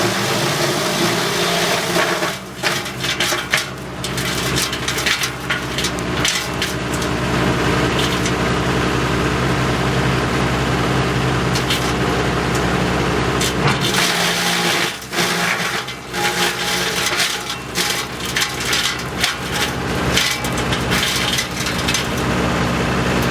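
WC42 wood chipper running with its engine drone steady, crunching and splintering wood as branches are fed through, with sharp cracks coming irregularly throughout.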